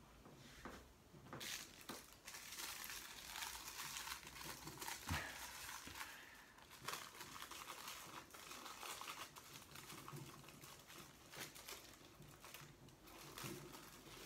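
Packaging crinkling and rustling in irregular bursts with sharp crackles, as a statue part is unwrapped by hand.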